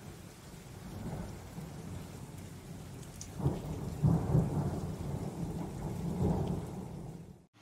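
Steady rain with rolling thunder: a low rumble swells about three and a half seconds in and rolls on for several seconds, then the sound cuts off abruptly near the end.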